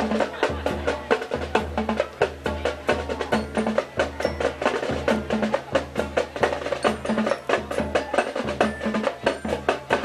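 High school marching band playing, with the drumline out in front: rapid snare strokes and sharp clicks over regular bass drum beats.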